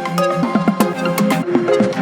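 Electronic music with a quick beat of sharp percussive hits over short pitched synth notes.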